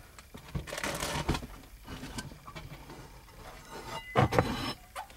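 Handling noise: rustling and light knocks in two bunches, about a second in and again about four seconds in, with quieter stretches between.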